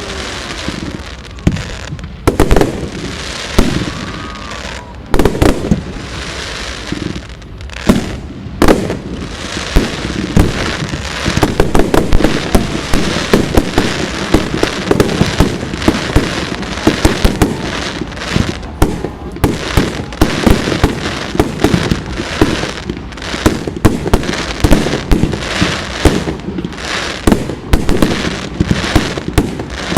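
Fireworks going off: a few separate loud bangs, then from about ten seconds in a dense, continuous barrage of cracks and bangs.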